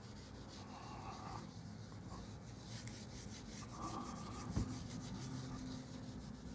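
Handheld whiteboard eraser wiping dry-erase marker off a whiteboard: faint rubbing strokes in two short spells, one near the start and one about four seconds in, with a light tap between them.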